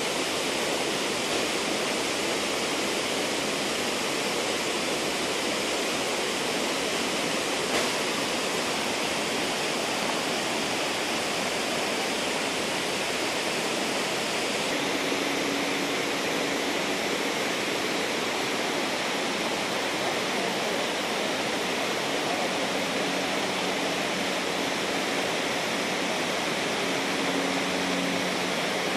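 Steady rush of flowing river water, an even noise that holds at the same level throughout.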